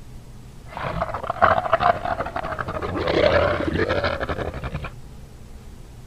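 Dinosaur sound effect from the Jurassic Park films: one rough, pulsing roar of about four seconds, starting just under a second in.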